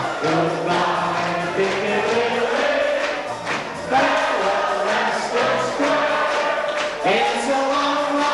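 Background music: a 1940s-era recording with a group of voices singing over instrumental accompaniment.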